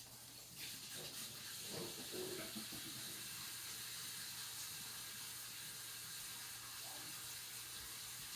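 Kitchen tap running steadily into a sink for hand-washing, starting about half a second in.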